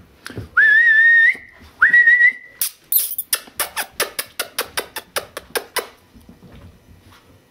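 Two long, steady whistled notes in quick succession, then a fast run of crisp crunches, about four a second, as an English setter puppy chews dry kibble from a metal pan. The crunching fades out about six seconds in.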